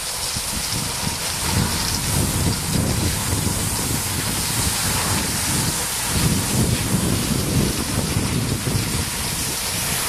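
Wind buffeting the camera microphone in uneven low rumbles, over a steady hiss of cross-country skis gliding on packed snow.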